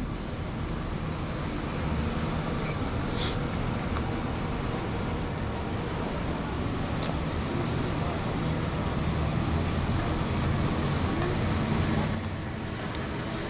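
Steady rumble of street traffic, with faint short high-pitched tones coming and going over it.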